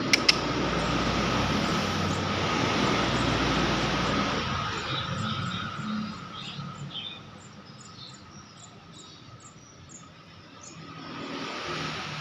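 A loud rushing noise, like a vehicle going past, swells and fades over the first four seconds, with two sharp clicks at the very start. After that come faint short high chirps, two or three a second, over a steady thin insect-like trill. A second swell of rushing noise comes near the end.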